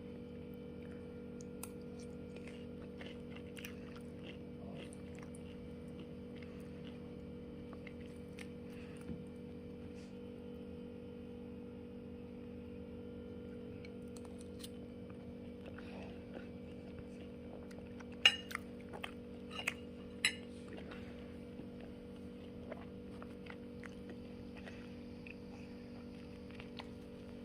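Steady low hum with scattered small clicks and taps, and a quick run of sharp clicks about two-thirds of the way through.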